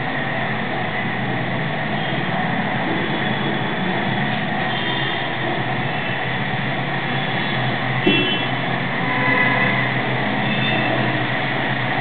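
Loud, steady noise, with a single sharp click about eight seconds in.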